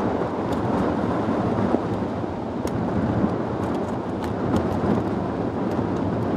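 Typhoon wind buffeting the microphone: a dense, steady rumbling rush that swells and eases slightly, with a few faint sharp ticks on top.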